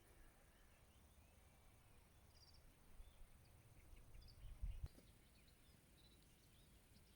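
Faint, distant birds chirping in short high calls through the second half, over quiet outdoor ambience. A brief low thump past the middle is the loudest moment.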